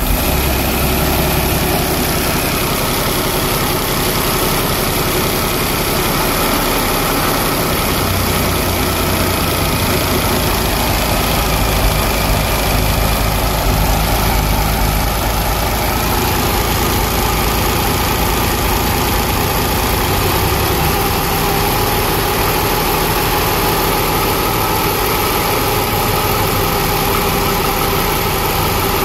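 Liberty 12 water-cooled V12 aircraft engine, installed as a boat engine, idling steadily.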